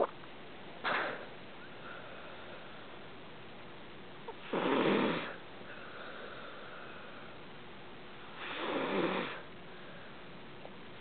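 A sleeping pet snoring: two slow, drawn-out snores about four seconds apart, after a shorter breath near the start.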